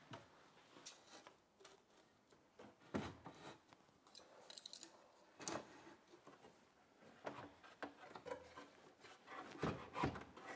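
Faint, scattered light knocks and rubs of wooden base cabinets being handled and nudged into place by hand, with a quick run of small ticks about four and a half seconds in.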